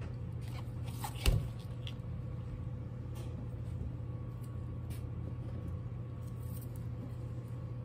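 A steady low hum, with one sharp thump a little over a second in and a few faint clicks.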